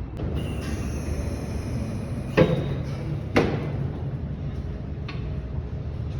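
Two sharp knocks about a second apart, then a fainter one, over a steady low machine rumble.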